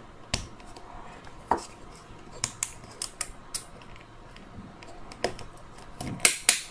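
Small, irregular plastic clicks and taps from fitting a replacement trigger and its spring into a Dyson V10's plastic handle housing with a small metal tool, with a quicker, louder run of clicks near the end.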